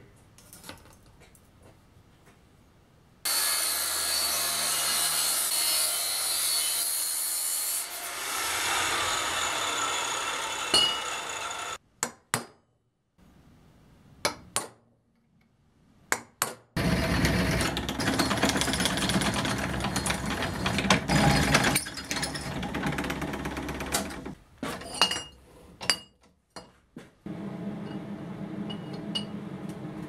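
Metalworking in a workshop: two long, loud stretches of steel being cut or ground by a power tool, with sharp hammer taps on metal in the pauses between them.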